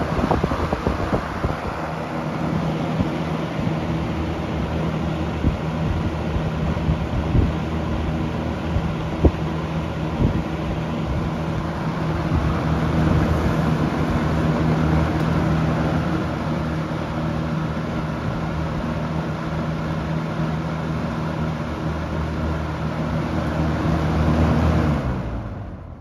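1981 Lakewood P-223 20-inch box fan running on high speed: a steady rush of air over a low motor hum, with a few faint ticks. Near the end the hum falls in pitch and the sound fades quickly as the fan winds down.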